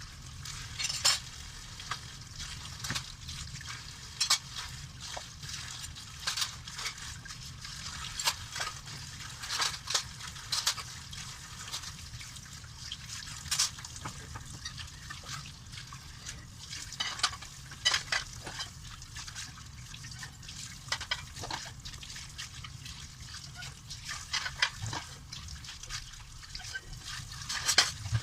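Dishes being washed by hand in a sink: water splashing and sloshing, with irregular clinks and knocks of dishware throughout.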